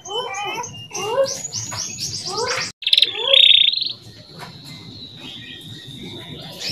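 Male canary singing: quick trills of repeated falling notes, a loud rapid roll about three seconds in, then a long steady high whistled note.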